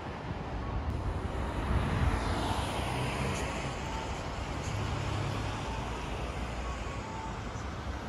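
City street traffic running steadily on the road below, swelling as a vehicle passes about two seconds in.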